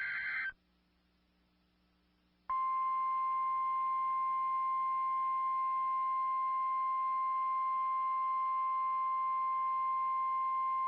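A brief burst of EAS/SAME digital data tones ends about half a second in. About two and a half seconds in, the NOAA Weather Radio 1050 Hz warning alarm tone starts: one steady, loud, unbroken tone that holds through to the end.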